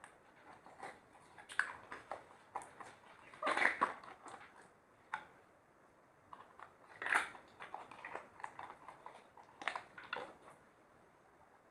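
Slime being squished and mixed by hand, making irregular sticky squelches, clicks and small pops, with louder bursts a few times and thinning out near the end.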